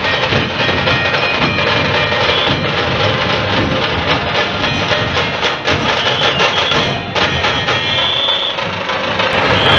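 Street procession drums playing a fast, unbroken beat, loud, with a few short high tones over it.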